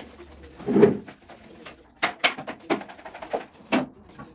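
Long-handled scrub brush scrubbing shower tiles in a small tiled room. There is a heavier scrape about a second in, then a run of about five quick brush strokes.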